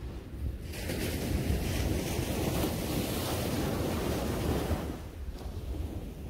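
A wave breaking and washing up a sandy shore: a rush of surf that swells about a second in and dies away about four seconds later. A low rumble of wind on the microphone runs underneath.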